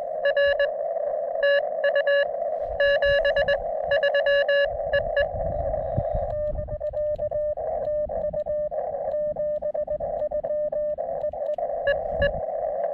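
Morse code (CW) from a portable ham radio transceiver: a keyed tone near 600 Hz over narrow-band receiver hiss. A strong signal keys for about the first five seconds, then a weaker signal comes through for several seconds.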